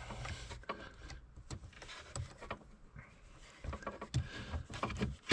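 Light clicks and taps of a plastic wiring connector and ignition switch being handled and lined up by hand, getting busier in the second half.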